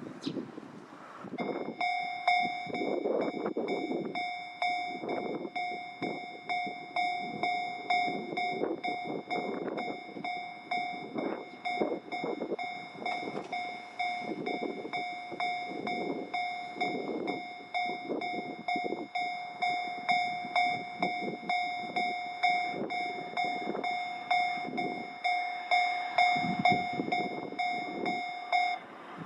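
Japanese level-crossing warning bell ringing: its electronic clanging tone starts about a second and a half in, repeats evenly, and stops shortly before the end. Underneath it a vehicle rumbles through the crossing.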